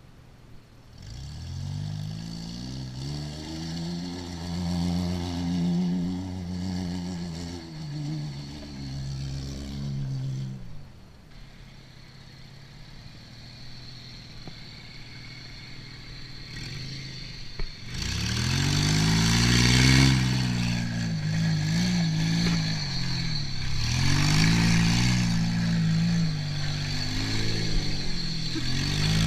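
Car engine revving hard on a gravel trail, its pitch climbing and dropping over and over, with a hiss of tyres and flung gravel. It is loud for the first stretch, fades as the car moves off, then comes back louder and closer about two-thirds of the way through with a run of quick revs.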